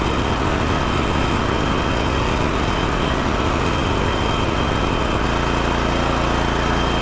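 BCS walk-behind rototiller's engine running while tilling. The sound is rough and churning until about five seconds in, then settles into a steadier running hum.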